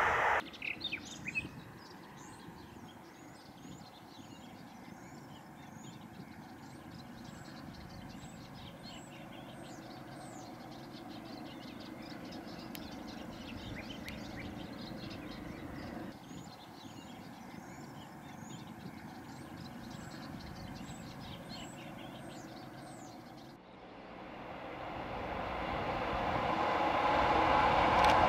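Birds chirping over a faint, steady low rumble. About 23 seconds in the sound changes to an approaching diesel freight train, its engine noise rising steadily louder as it draws near.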